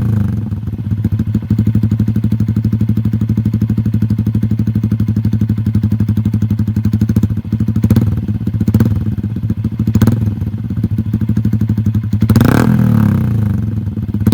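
Yamaha Sniper 150's single-cylinder four-stroke engine idling through an SC Project muffler with its silencer insert removed, with a few short throttle blips in the second half.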